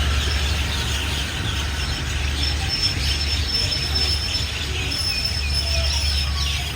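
A train's diesel locomotive idling at a standstill with a steady low hum, while a large flock of birds chirps and twitters busily over it.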